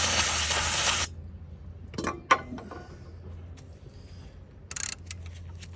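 Aerosol can of brake cleaner spraying: a loud one-second hiss at the start and a second short burst near the end, with a few sharp metallic clicks about two seconds in.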